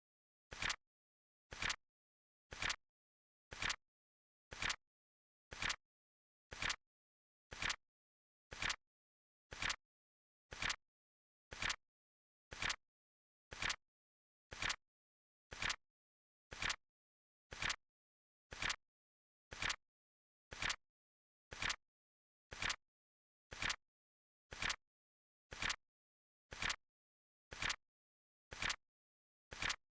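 Flip-clock timer sound effect ticking steadily once a second, each tick a quick double click.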